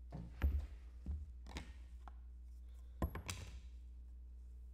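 A clear hard-plastic card holder handled by hand, giving several clicks and light knocks. The loudest come about half a second in and again about three seconds in.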